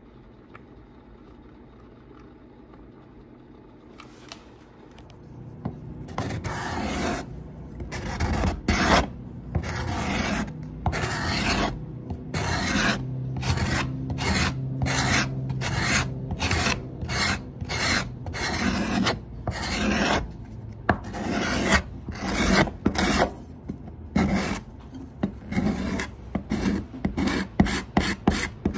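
Steel card scraper drawn in repeated strokes across a wooden fiddle plate, shaving off wood. After a few quiet seconds the strokes come about once a second, growing shorter and quicker near the end.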